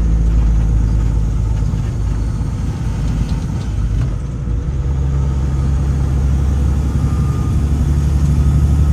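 Delivery truck's engine running steadily as it drives, a low drone inside the cab. It eases slightly about four seconds in, then grows stronger again from about five seconds.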